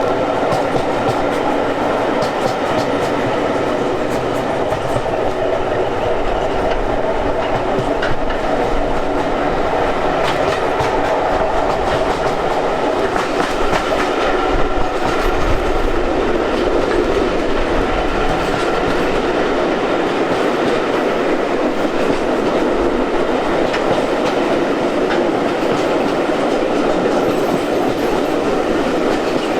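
Train running steadily along the track: a continuous rumble with wheels clicking over the rail joints.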